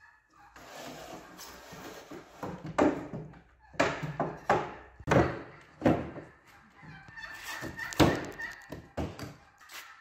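Wooden fold-out table being opened out: its top leaves knocking and thunking against the frame several times, with wood sliding between the knocks and the loudest knock about eight seconds in.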